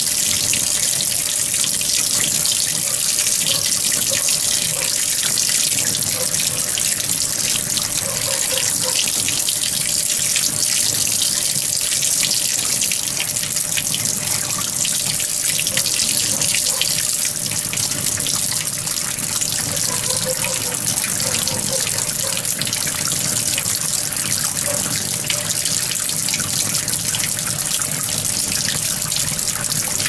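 Water running steadily into the drum of a Panasonic 16 kg top-loading washing machine as it fills at the start of its wash cycle.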